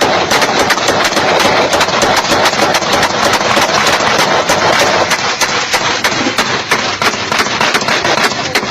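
Shootout sound effect: rapid gunfire from several guns at once, loud shots coming several a second in an irregular, overlapping stream over a continuous din.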